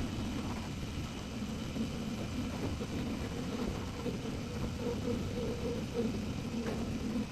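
Machinery running with a steady low hum.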